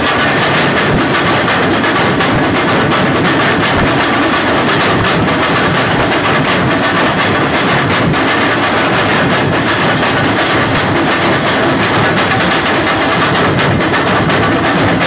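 A group of drummers beating large barrel drums with sticks, loud and without a break, a dense, fast, continuous beat of many drums playing together.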